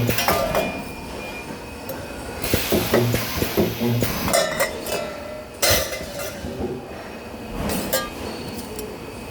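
Resistance spot welder at work: a few short electrical buzzes as welds are made, with short hissing bursts and metallic clinks and clacks of sheet-metal parts being handled.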